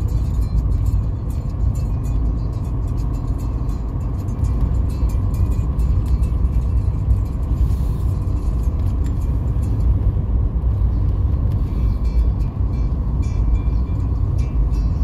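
Steady rumble of a car driving, heard from inside the cabin: engine and tyre noise on a rough, patched asphalt road, with small rattling ticks.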